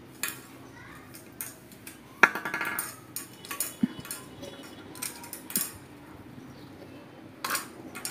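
Plastic spoons and small balls clicking and tapping on a glass tabletop as the balls are scooped and passed from spoon to spoon, with one louder clack about two seconds in.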